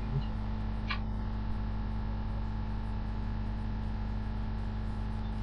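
Steady electrical mains hum in the recording, a low buzz with evenly spaced overtones. A single short click comes about a second in.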